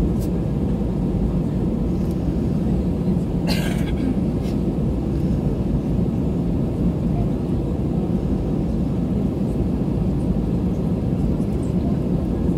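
Steady low rumble inside the cabin of an Airbus A320 airliner as it taxis, with one brief hiss about three and a half seconds in.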